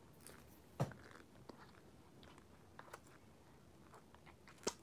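Quiet close-up chewing and crunching of a chalky homemade powder 'brick', with faint scattered clicks, one sharper crunch about a second in and a louder one near the end.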